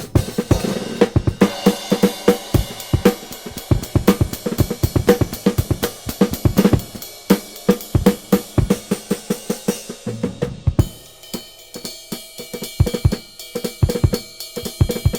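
Drum-heavy music played from a vinyl record through a moving-coil phono cartridge and a phono preamp, recorded directly from the preamp's output: a fast, steady beat of kit drums and cymbals that thins out to sparser hits over sustained bass notes about ten seconds in.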